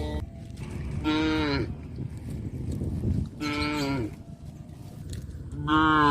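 Cattle mooing: three short calls about two and a half seconds apart, each dropping in pitch at its end.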